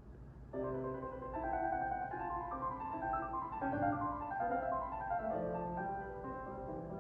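Piano music: a faint low hum, then piano notes coming in abruptly about half a second in and playing a flowing melody with chords.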